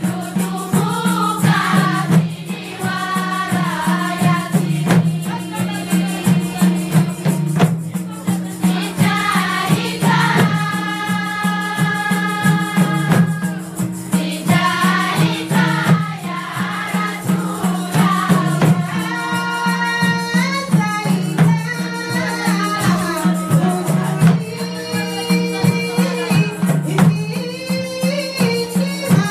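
Women's chorus singing a debaa, the traditional Mahoran sung dance, voices in unison over a steady percussion beat and a constant low hum.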